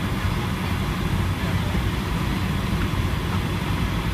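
Jet airliner's turbofan engines running at low taxi thrust, heard from inside the passenger cabin as a steady low rumble with an even hiss over it while the aircraft taxis.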